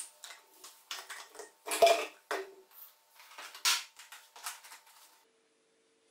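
Empty plastic drink bottles and their screw caps knocking and clicking as they are handled and set down on a table, a string of light clatters with two louder knocks.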